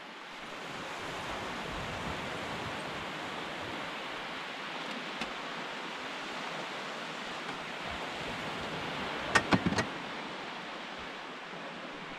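Steady hiss of sea surf washing on the shore, with a quick run of about four sharp knocks about nine and a half seconds in.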